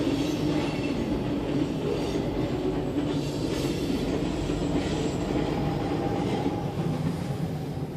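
Freight train passing close by, heard from inside a car: steady noise of steel wheels on the rails as centre-beam cars loaded with lumber roll past, then Union Pacific diesel-electric locomotives go by in the second half. The sound eases slightly near the end.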